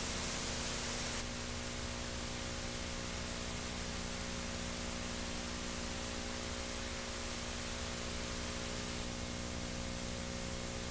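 Steady tape hiss with a low mains hum from a VHS tape's audio track, with no program sound on it. The hiss drops a little about a second in.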